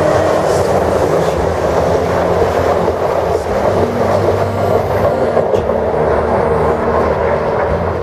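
Talgo passenger train behind a Renfe class 252 electric locomotive rushing past at speed: a loud, steady rumble and rush of wheels on rail as the coaches go by.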